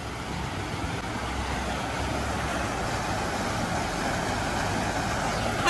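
Cargo truck driving on a gravel road toward the listener, its engine rumble slowly growing louder, over the steady rush of river rapids.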